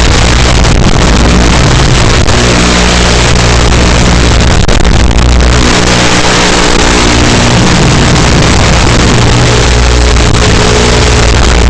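Loud electronic dance music with heavy, distorted sustained bass synth notes that shift every couple of seconds under a dense, noisy top end.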